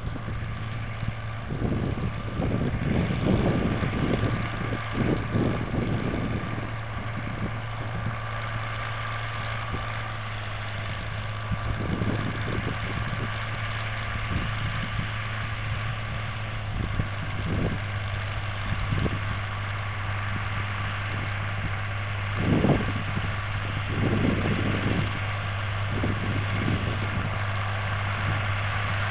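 Farmall 560 tractor's six-cylinder engine running steadily under load while pulling a disk harrow, with wind buffeting the microphone now and then.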